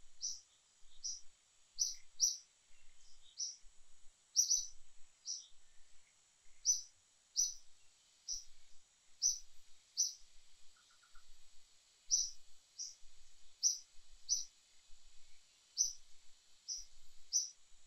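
A small bird calling in short, high-pitched chirps, repeated irregularly about once or twice a second.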